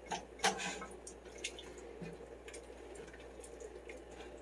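Spoon stirring a watery stew in a pot: irregular soft wet sloshes and light clicks, the loudest about half a second in.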